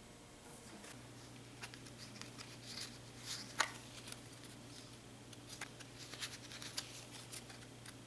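Playing cards being handled and dealt onto a wooden table: a run of light, sharp card snaps and taps, the sharpest about three and a half seconds in, with a busier cluster near the end.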